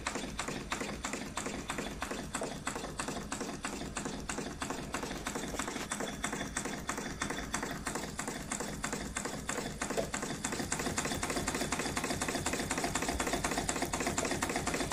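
Model O.B. Bolton-type triple-expansion marine steam engine running on compressed air: a rapid, even clatter of exhaust beats and valve-gear clicks, getting a little faster and louder in the last few seconds.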